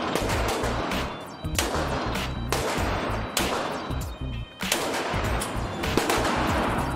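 Glock 40 10mm longslide pistol firing a string of single shots, spaced about a second or more apart, at an indoor range, with background music mixed under the shots.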